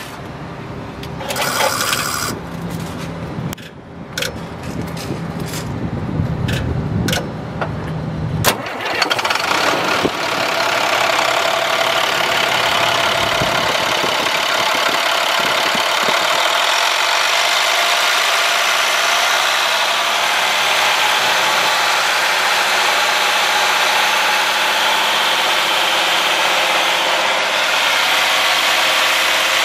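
2008 International 7500 truck's diesel engine, heard close up under the open hood. For the first eight seconds or so it runs unevenly with scattered knocks. Then the sound changes abruptly to a steady running note with a strong hiss over it.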